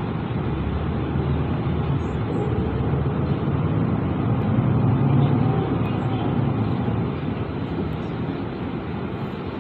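Mercedes-Benz Citaro city bus's diesel engine and road noise heard from inside the cabin, a steady low rumble that builds up and then eases off about seven seconds in as the bus slows.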